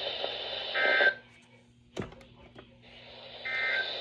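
Weather radio receiver hiss with two short buzzing bursts of Emergency Alert System data tones, about three seconds apart, the end-of-message code closing a warning broadcast. Between the bursts the signal drops out to near silence, with a single sharp click.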